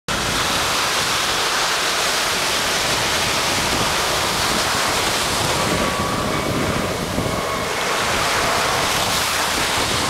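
Pacific surf: small waves breaking and washing up over a sandy beach in a steady rush, with wind buffeting the microphone.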